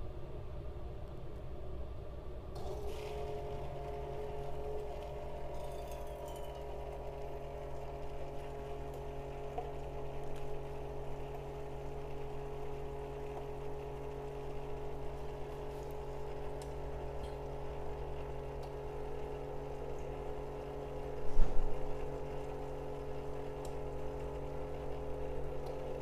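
Single-serve coffee maker starting to brew: a steady pump hum sets in about two and a half seconds in, and hot coffee streams from the spout into a stainless steel mug. One sharp knock about 21 seconds in.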